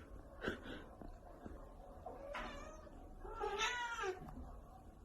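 Domestic cat meowing twice: a shorter call about two seconds in, then a longer, louder one about three and a half seconds in.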